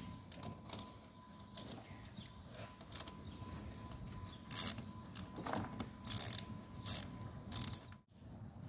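Ratchet wrench clicking in short back-and-forth strokes as the battery terminal clamp is tightened back onto its post, with uneven metallic clicks and taps.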